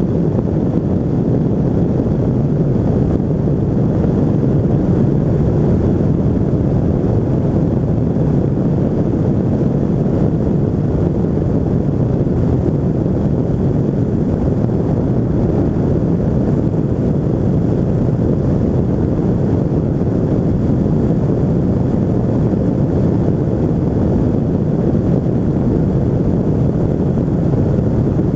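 Steady engine drone and wind rush from a Pegasus Quantum flexwing microlight in flight, its Rotax 582 two-stroke engine running at an even setting, with wind buffeting the microphone.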